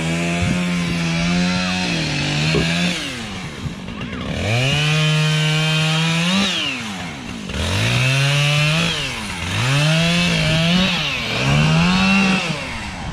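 Chainsaw cutting firewood, its engine revving up to a held high pitch and dropping back about five times.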